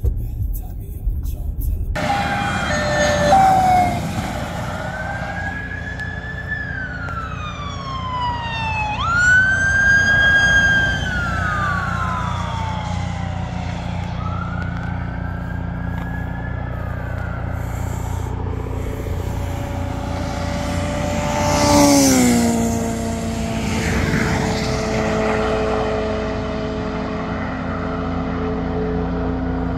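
Police car sirens wailing in long rising and falling sweeps, starting about two seconds in. About two-thirds of the way through, a vehicle passes close by with a loud rush and a drop in pitch, followed by a steady hum.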